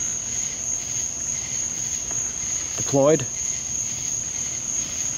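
Crickets trilling steadily in one continuous high note.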